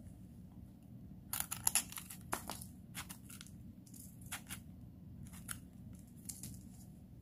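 Knife blade cutting and scraping the firm flesh of a bitter bolete mushroom: a quick run of crisp scraping strokes about a second in, then single scrapes every half second to a second, over a low steady hum.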